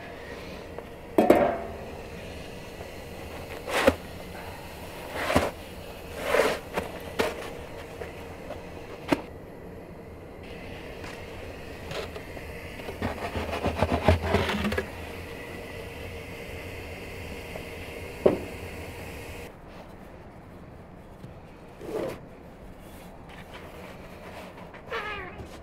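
Scattered wooden knocks and scrapes of flatbread being baked in a brick dome oven: a wooden peel sliding a dough round onto the oven floor, with a longer run of scraping about halfway through, and a wooden rolling pin on a dough board near the end. A faint steady hum lies underneath and stops about three quarters of the way through.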